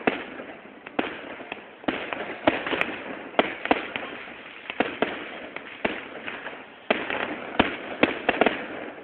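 Fireworks going off in quick succession: sharp bangs at an irregular pace of roughly two a second, over a continuous crackle. The sound is thin, with no highs, as on a low-quality phone recording.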